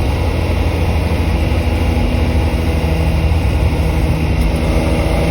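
1995 BMW M3 running on the road, a steady engine rumble with road noise; the engine note shifts in pitch about four seconds in.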